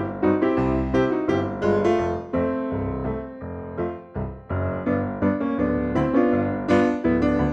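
Background music: a bouncy keyboard tune of quick struck notes over a steady bass beat.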